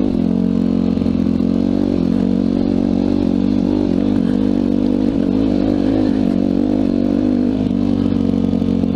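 Yamaha YZ dirt bike's engine running under way at a fairly steady, slightly wavering pitch, with no big revs.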